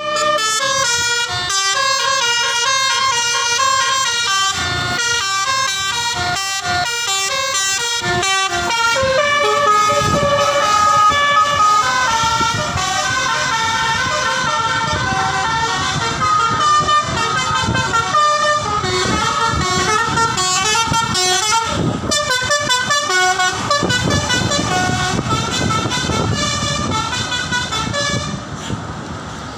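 Telolet horns on tour buses: multi-note musical air horns play quick melodic runs of loud toots, several notes overlapping and changing pitch every fraction of a second. The horns drop away shortly before the end.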